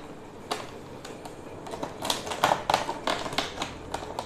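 Stiff clear plastic blister packaging crackling and clicking as it is handled and pried open, in a run of sharp clicks that is busiest around the middle.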